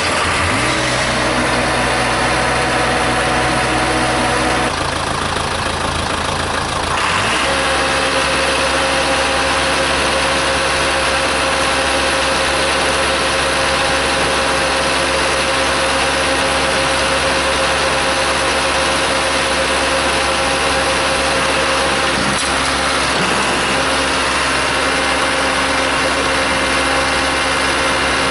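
Case 580C backhoe engine running steadily, its speed shifting around five seconds in and again around seven seconds in, then holding a steady note.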